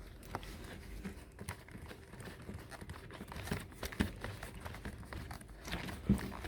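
Parts of a backpack vacuum cleaner being handled and fitted together: irregular light knocks and clicks, the sharpest one just after six seconds in.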